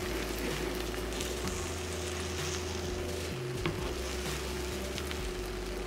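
Beaten eggs cooking in melted butter in a nonstick skillet, a soft steady sizzle, with one light tap from a spatula pushing at the omelette's edge about halfway through.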